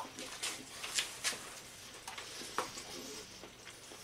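A light clink of a knife being set down on a china plate at the start, then faint chewing and mouth clicks as a mouthful is eaten, with a brief faint 'mm' hum about three seconds in.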